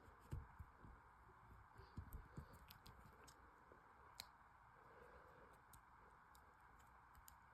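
Near silence with a few faint scattered clicks: the plastic joints of a Marvel Legends Miles Morales action figure being moved and handled, over a steady faint hiss.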